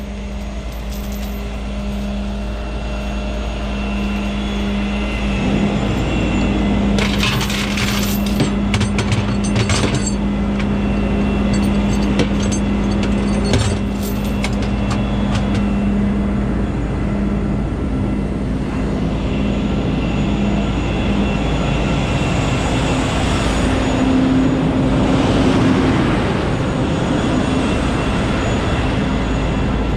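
Semi truck's diesel engine running steadily at a raised idle. Metallic clanking and rattling comes about 7 to 10 seconds in and again briefly near 14 seconds. Just after the halfway point the engine speed steps up a little and the running turns noisier.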